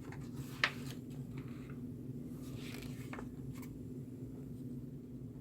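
A few small clicks and light scrapes of a resistor's wire leads being bent and fitted into a circuit board, the sharpest click about two-thirds of a second in, over a steady low hum.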